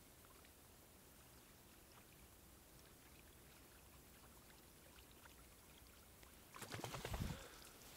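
Near silence over open water, then, a little more than a second before the end, about a second of louder knocking and clattering with a low rumble under it.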